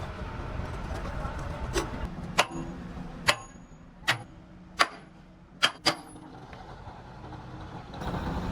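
Metal-on-metal strikes: about seven sharp clanks, some ringing briefly, at uneven intervals over a low steady engine rumble.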